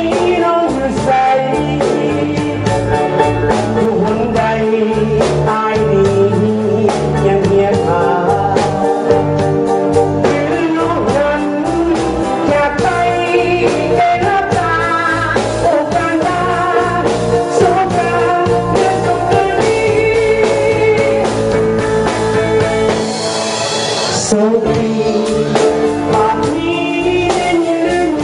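Live rock band playing: a lead vocalist singing over electric guitar, bass guitar and drums, with a steady beat. About two-thirds of the way through the bass drops out briefly under a bright cymbal wash.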